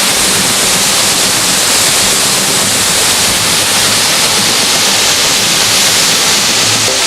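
Waterfall: falling water rushing with a loud, steady hiss.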